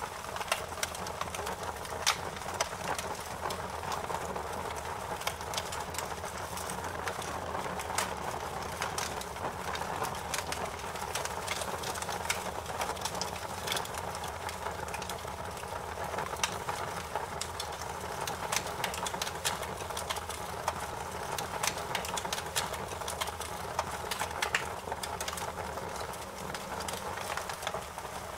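Wood fire crackling in a fireplace: frequent sharp pops and snaps over a steady hiss.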